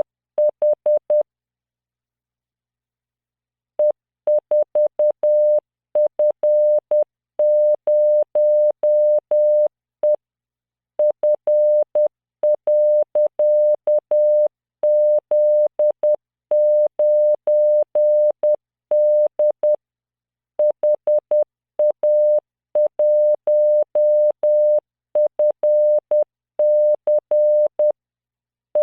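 Computer-generated Morse code tone at about 600 Hz, keyed at 10 words per minute as dots and dashes in random five-character practice groups. A pause of about two and a half seconds falls about a second in, with shorter breaks between groups.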